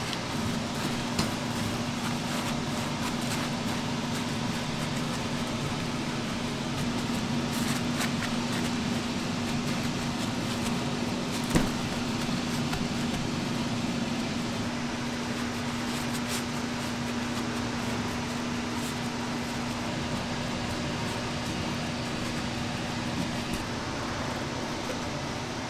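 Steady whir of a kitchen ventilation fan with a low hum, over soft handling noises as raw pork shoulders are wiped with paper towels and moved on a stainless steel table; a few light knocks, the sharpest about halfway through.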